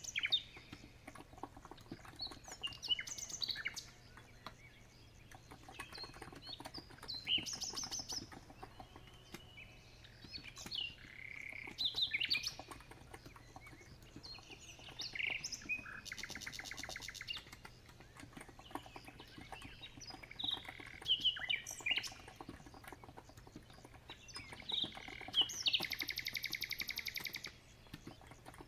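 Songbirds singing: a run of varied chirps and whistled phrases, with a long rapid trill about 16 seconds in and another near the end. Soft keyboard typing clicks lie faintly beneath.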